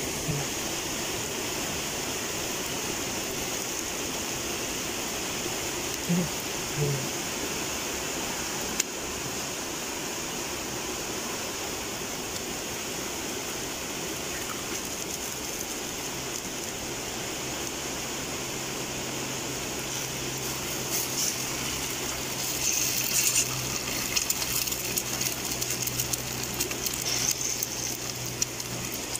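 Steady sizzling hiss of a paratha frying in oil in an aluminium pan over a wood fire. There is a sharp tap about nine seconds in. In the last third the sizzle turns to denser crackling and scraping as an egg fries on the paratha and is spread with a knife.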